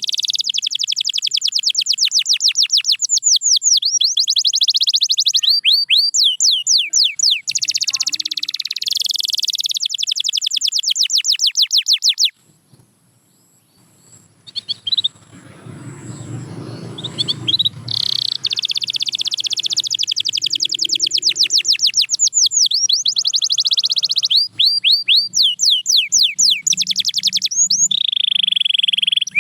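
Domestic canary singing: long, fast trills and rolls of rapidly repeated high-pitched notes. The song breaks off for about two seconds around the middle, a faint low rumble comes in, and then the trilling resumes.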